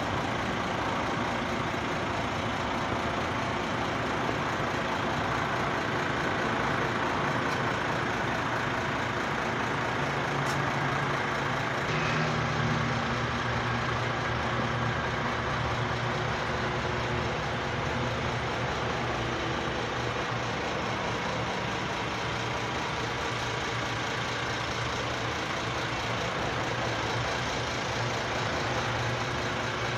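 An engine running steadily, a constant low hum under an even rushing noise, with the hum growing somewhat stronger about a third of the way through.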